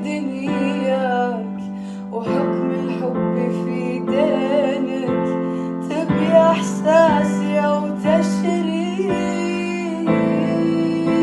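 Arabic ballad music: steady electric-piano or keyboard chords under a wavering, ornamented melody line.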